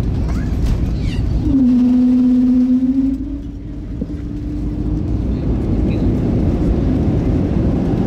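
Cabin noise inside an Airbus A320 rolling out on the runway after landing: a loud, steady low rumble. A steady hum sets in about a second and a half in and fades out a few seconds later.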